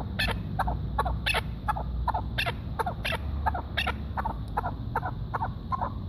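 Chukar partridge calling a steady run of short clucking chuck notes, about four a second.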